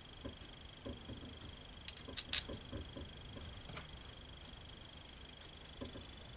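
Small steel tank brackets and rubber mounts being handled and fitted together: soft fumbling, then three sharp clicks in quick succession about two seconds in as the metal parts knock together. A faint steady high-pitched whine runs underneath.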